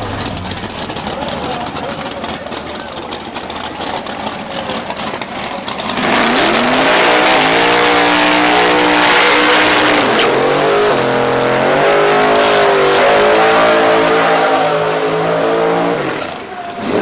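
Drag-race car engine running rough and crackly at idle, then about six seconds in revving hard to high rpm. The pitch rises, holds and moves in steps for about ten seconds, then drops back sharply near the end.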